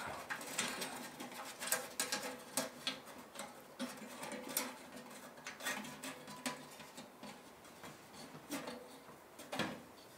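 Light clicks, taps and rustling as parts of a foldable titanium wood stove are handled and fitted together. The taps come quickly for the first few seconds, then more sparsely, with a louder knock near the end.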